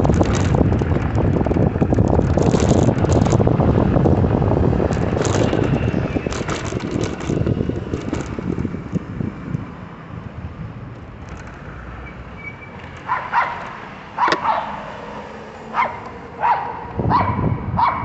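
Wind rushing over the microphone of a moving electric bicycle, easing off about halfway through as the bike slows. Then a dog barks repeatedly in short barks, roughly one a second.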